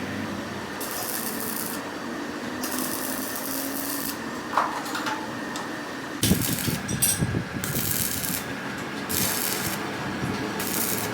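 Rasping strokes of a hand tool working metal, one after another about a second apart, with a few louder knocks a little past the middle.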